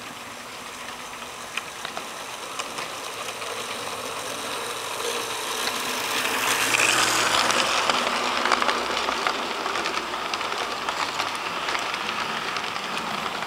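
Model train locomotive and freight cars rolling along the track, with wheels clicking and rattling over the rails. It grows louder as the train passes close, loudest between about six and nine seconds in, then eases off.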